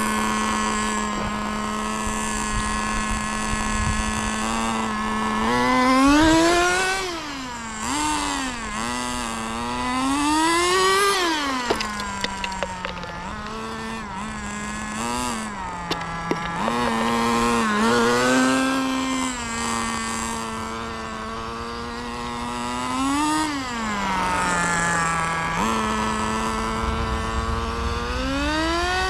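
Small nitro engine of a Kyosho FW06 1/10 RC touring car idling with a steady buzz, broken by about five bursts of revving that rise and fall as the car accelerates and slows. It twice drops briefly to a lower idle. A few sharp clicks come around the middle.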